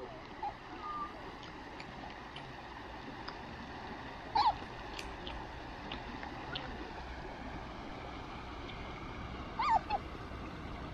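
Otter giving short, high squeaks over the steady rush of a river. Two louder squeaks come about four and a half seconds in and near the end.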